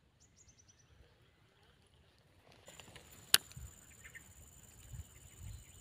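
Quiet outdoor ambience: a quick falling run of high chirps near the start, then a steady high-pitched whine from about halfway, a single sharp click, and a few soft low thumps.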